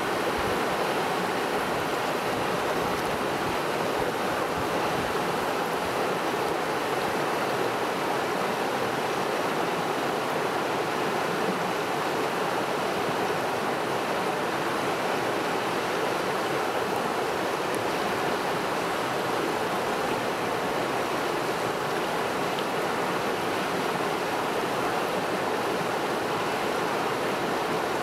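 Shallow river rushing over a rocky bed and small rapids, a steady, even rush of water that holds the same level throughout.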